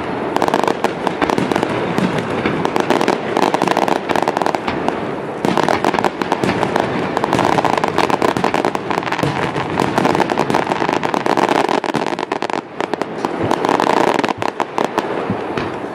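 Fireworks display: dense, continuous crackling and popping of many bursting shells and crackling stars, thinning out near the end.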